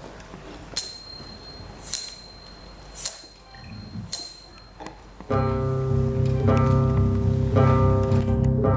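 Four sharp metallic clicks with a short ringing tail, evenly spaced about a second apart like a count-in. About five seconds in, the choir and accompaniment come in together on a loud, sustained chord.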